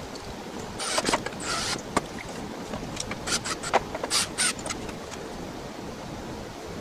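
Irregular clicks, clinks and short scraping bursts from drill bits handled in their index case and a cordless drill used briefly on a wooden board and set down. There is no steady motor whine.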